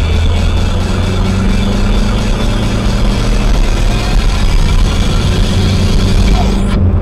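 Car engine and road noise inside a moving car, a steady low drone picked up by the dashcam's microphone.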